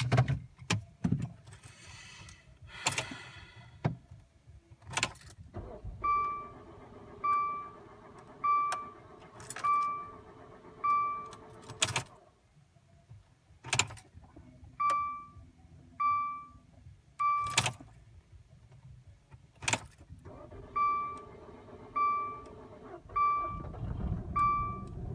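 Keys jangling and sharp clicks inside a car, then the car's warning chime sounding over and over, about once every 1.2 s. The chime stops briefly twice, each time around a loud click. Near the end a low rumble sets in.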